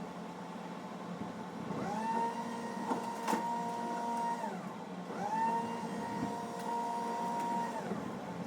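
A motor whine that rises in pitch, holds steady for about two and a half seconds, then falls away, heard twice, over a steady low engine hum.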